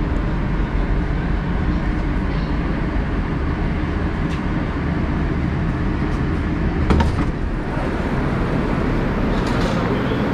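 Moscow Metro 'Moskva' train rumbling as it runs into the station, with a short loud knock and clatter about seven seconds in as the sliding doors open.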